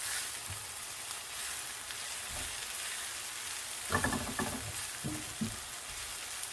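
Oil sizzling steadily in a pan as onions and dried Egyptian spinach leaves fry until crispy, with a few knocks and clinks of a utensil against the pan about four and five seconds in as the food is stirred.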